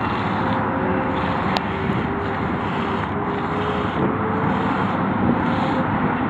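Camel being hand-milked: jets of milk squirting into a metal bowl of milk in a steady rhythm, about two squirts a second, over a steady rushing background.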